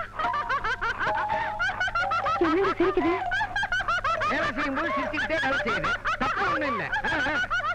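Laughter: a dense run of snickering and chuckling, short rapid bursts that go on without a break.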